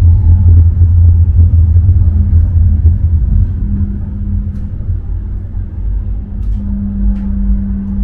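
Moving tram: a loud, continuous low rumble of the wheels on the rails, with a steady motor hum that grows louder near the end and a few faint clicks.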